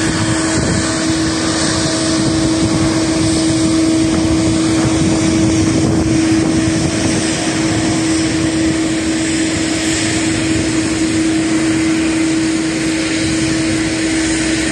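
Jet engine noise from an Airbus A350-900's Rolls-Royce Trent XWB turbofans at takeoff thrust as the airliner lifts off and climbs away: a steady, loud rush of sound with a constant low hum underneath.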